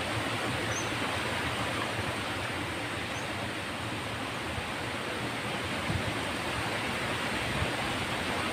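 Stream water running steadily over a small concrete weir spillway, an even rushing.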